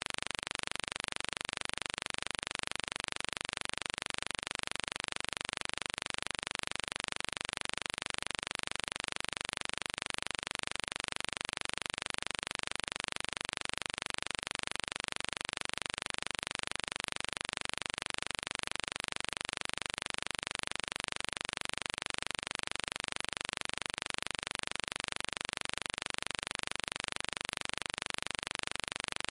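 Steady, unchanging hiss, strongest in the upper-middle range, with no other sound on top of it.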